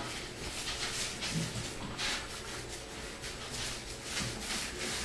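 Mini paint roller being worked back and forth over the subfloor, spreading wet floor primer in repeated strokes.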